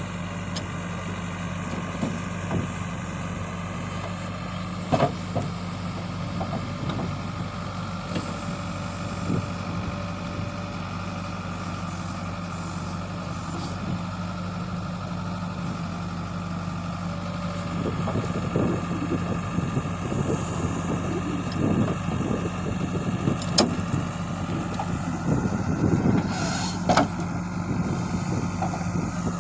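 JCB backhoe loader's diesel engine running steadily under working load as its bucket digs soil and dumps it into a tractor trolley, with earth scraping and a few sharp metal clunks. The digging noise gets louder and busier about two-thirds of the way through.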